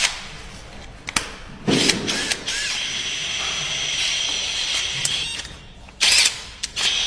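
Flaring tool working copper pipe: a few sharp metal clicks, then a steady mechanical whir for about four seconds as the tool turns, with a loud burst near the end.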